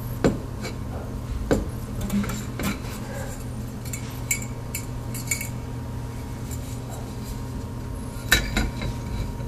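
Light metal clicks and clinks of a recessed light's metal trim ring and its spring hold-down clips being handled and pushed into the ceiling can, with a sharper click about eight seconds in.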